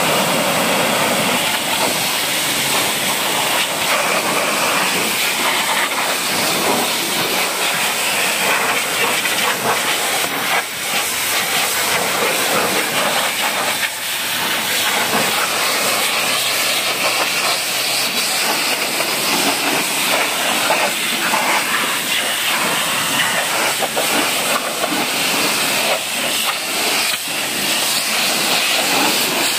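Pressure-washer jet spraying water against a car's wheel and body panels: a steady, continuous hiss.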